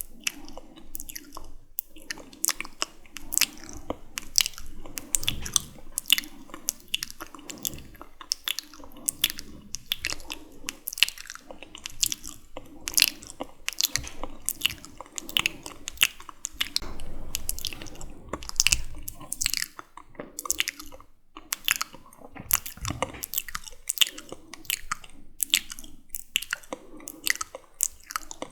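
Close-miked wet, sticky mouth sounds: rapid lip and tongue clicks and smacks, several a second.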